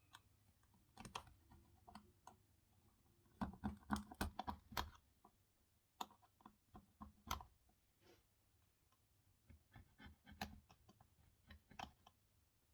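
Faint scratching and clicking of a small hand tool scraping excess solder off a 00 gauge turntable's wiring connection, with a quick run of scraping strokes between about three and a half and five seconds in, then a few separate clicks.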